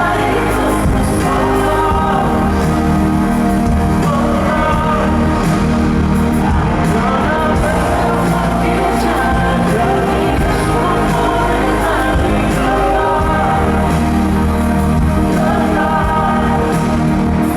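Live pop band playing loudly with a male lead vocal singing over it.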